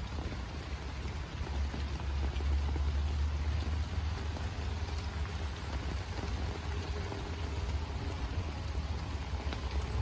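Light rain pattering on a tent canopy: a steady hiss with faint scattered drop ticks, over a low rumble that grows a little louder about a second and a half in.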